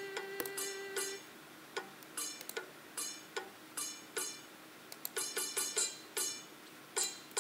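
Music: a held note stops about a second in, followed by a string of short plucked notes at an uneven pace.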